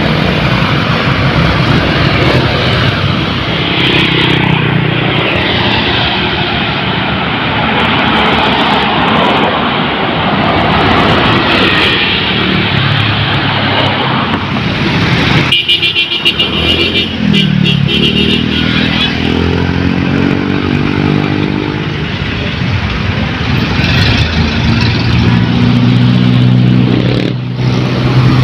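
Busy road traffic with buses and motorcycles passing close by. About halfway through the sound changes abruptly, and a bus engine is heard pulling away, rising in pitch as it accelerates.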